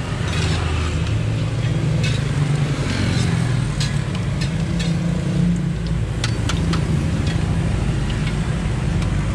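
Spring rolls sizzling in a wok of hot oil, with sharp metal clinks as the slotted skimmer and ladle scrape and knock against the wok while the rolls are lifted out. Under it runs a steady low rumble, the loudest thing heard.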